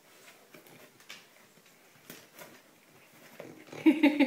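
Faint scratching and rustling as a French bulldog noses and paws at a cardboard gift box and its paper, with a much louder burst of noise near the end.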